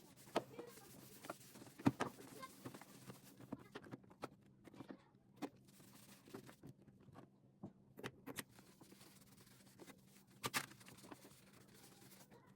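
Scattered light clicks, taps and rustling of things being handled by hand, with sharper knocks about two seconds in and again past ten seconds.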